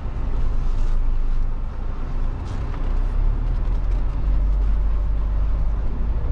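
Inside the cab of a 2022 Mahindra Thar driving over a dirt course: the turbocharged diesel engine runs steadily under a deep, even cabin noise from engine and tyres.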